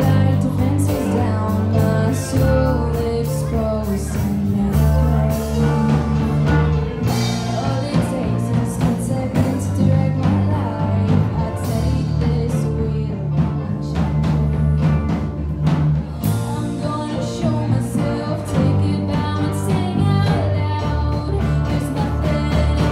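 A live rock band playing: a woman singing lead over electric guitar, bass guitar and a drum kit.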